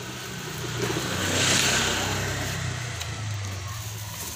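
A motor vehicle passing close by: a steady engine hum whose noise swells to a peak about a second and a half in, then fades away.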